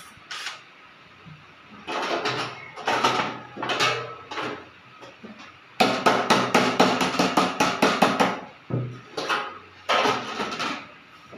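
Sheet-metal gutter flashing being handled and struck with a hand tool: short bursts of metal clatter, then a quick run of knocks, about eight a second, lasting some three seconds in the middle.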